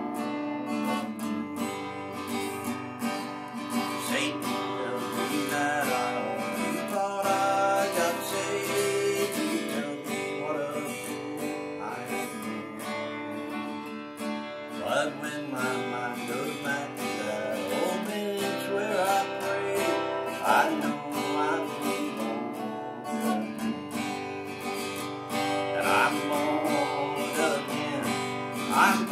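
Steel-string acoustic guitar strummed in an upbeat rhythm, playing an instrumental break in a gospel song.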